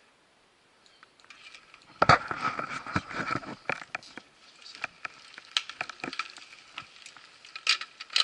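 Quiet for about two seconds, then a run of irregular clicks, knocks and rattles from mountain bikes and riding gear being handled and rolled off on a gravel track, loudest just after the start of the clatter.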